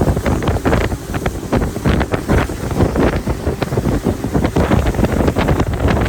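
Wind buffeting the microphone aboard a moving boat, in rapid, irregular rough gusts over a steady rush of noise.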